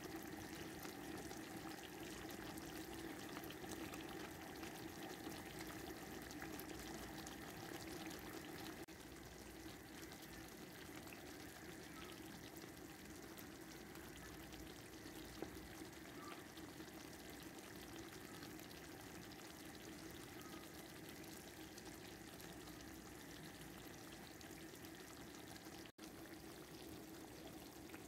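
Chicken tikka masala sauce simmering in a pan: a faint, steady bubbling sizzle, with a low steady hum behind it.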